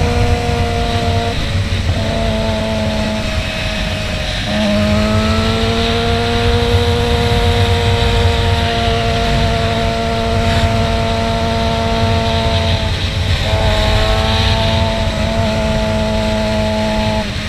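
Suzuki GSX-R sportbike's inline-four engine cruising at steady revs, with strong wind rumble on the onboard microphone. The revs drop and slowly climb back about four and a half seconds in, and dip briefly again later.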